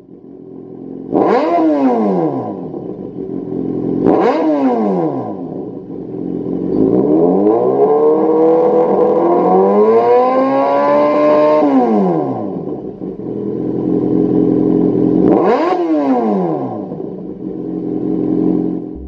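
Kawasaki Z800's inline-four engine through a Lextek MP4 aftermarket silencer, idling and revved with the bike standing still. It gives three quick throttle blips that rise and fall sharply, about a second in, about four seconds in and near the end. In the middle it gives one longer rev that climbs and is held for several seconds before dropping back to idle.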